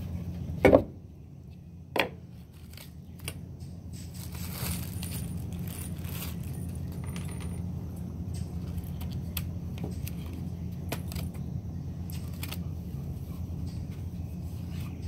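Wooden planter box and loose pine boards handled and set down on a wooden deck: two sharp knocks near the start, then light clicks and taps, over a steady low hum.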